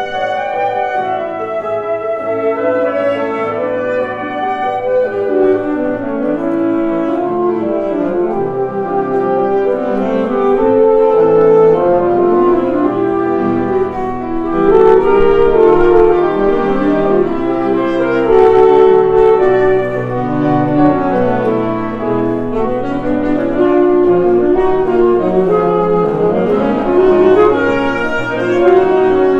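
Two saxophones and piano playing classical chamber music together, in quick-moving lines; the music swells louder partway through.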